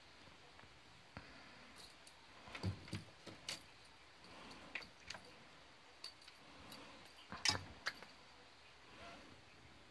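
Scattered light clicks and rattles from a small object being handled, about a dozen at irregular intervals, loudest about two and a half and seven and a half seconds in, over a quiet background.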